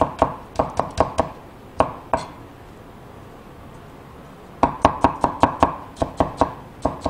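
Cleaver chopping green bell pepper into small dice on a wooden cutting board: quick knocks about five a second, with two lone strokes and then a pause of about two seconds in the middle before the chopping picks up again.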